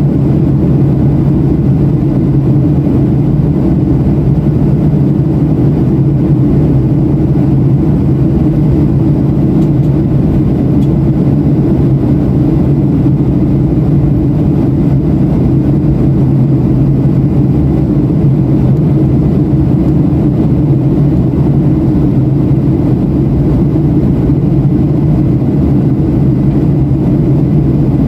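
Boeing 737-700 cabin noise in flight, heard inside the cabin: a steady low drone of the CFM56-7B engines and the airflow over the fuselage, with a constant low hum.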